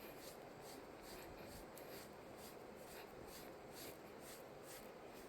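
Faint, even strokes of a grooming brush through a cat's fur, about two strokes a second.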